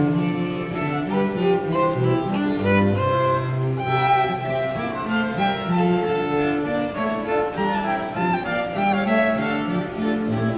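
A live string quartet of violins and cello playing, smooth sustained bowed notes, with the cello holding the low line beneath the violins' melody.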